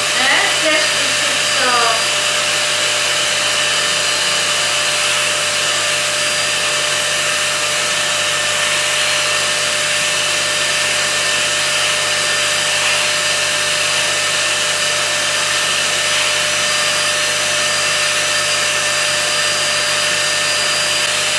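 Ultenic P30 Combo pet-grooming vacuum running steadily, a constant motor drone with a steady whine, as its suction brush head works through a dog's coat.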